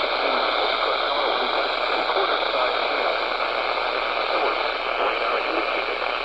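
Steady hiss of radio static from a radio receiver.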